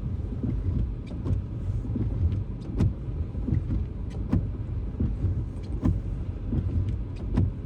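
Inside a car driving on a snowy road: a steady low rumble of engine and tyres, with scattered short clicks and knocks.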